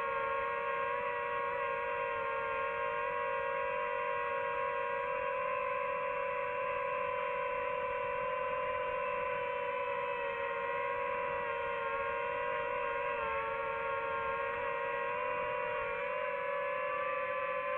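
DJI FPV drone's motors and propellers whining steadily in flight: a held hum made of a few tones that waver slightly in pitch and dip briefly near the end.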